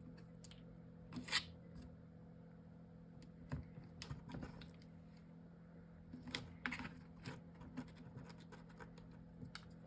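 Scattered rustles, scrapes and light taps of paper and chipboard pieces being handled and held in place, over a steady low hum.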